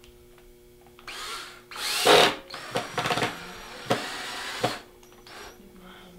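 Cordless drill driving drywall screws to fasten a set of deer antlers onto a mannequin's antler block. The motor runs in short bursts from about a second in, loudest near two seconds, then holds a steadier whine until it stops a little before five seconds, with a brief blip after.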